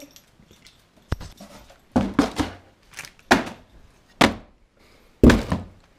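Items being dropped and set into a cardboard box: an irregular string of thunks and rustles against the cardboard, the loudest about five seconds in.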